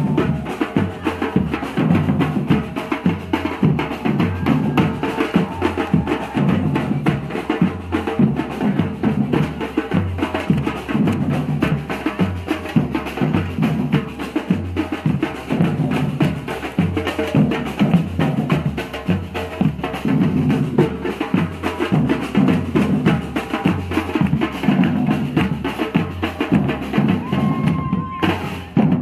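Samba bateria drumming: a group of large drums struck with sticks, playing a dense, steady samba groove together, with a brief break near the end.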